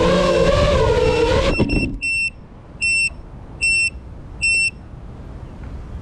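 Background music that cuts off about a second and a half in, followed by an electronic buzzer sounding four short, evenly spaced high beeps about 0.8 seconds apart. This is typical of a landed FPV quadcopter's locator beeper.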